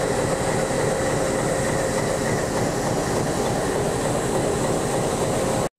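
YDM-4 meter-gauge diesel locomotive idling at close range: a loud, steady engine and machinery drone with a few constant tones.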